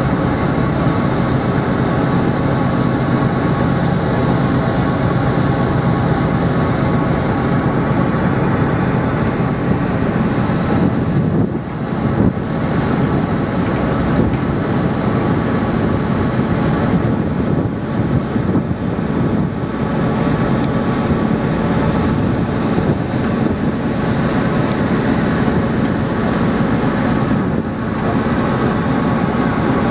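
The Pride of Burgundy ferry's engines and machinery droning steadily: a low hum with a rushing noise over it, dipping briefly a few times.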